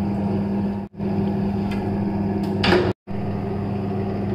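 Bench drill press motor running with a steady hum, with a short scraping clatter about two and a half seconds in. The sound cuts out for a moment twice.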